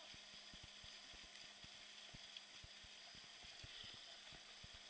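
Near silence: a faint steady hiss with scattered soft low knocks, and no clear event.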